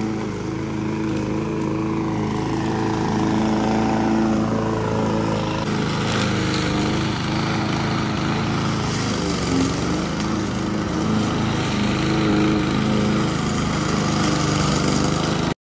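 Petrol lawn mower engine running steadily, cutting off abruptly near the end.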